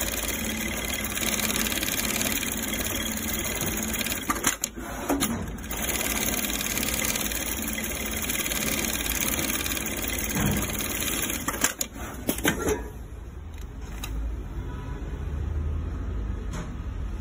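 Automatic industrial sewing machine (a CLF3 mattress-handle double sewing machine) stitching a handle strap onto mattress border fabric, running steadily, with a few sharp clicks. About three-quarters of the way through the stitching stops, leaving a low hum.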